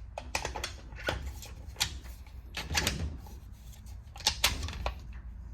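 Irregular metal clacks and knocks as steel die segments are handled and pushed into a hydraulic hose crimper, over a low steady hum.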